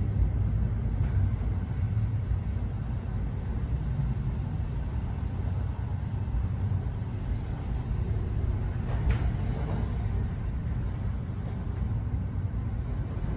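Steady low rumble inside a moving Otis Series 4 traction elevator car, running up its shaft.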